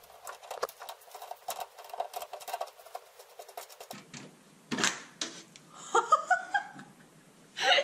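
Metal tool clicking and scraping rapidly against a water supply line fitting as it is worked loose, with a few louder knocks in the second half.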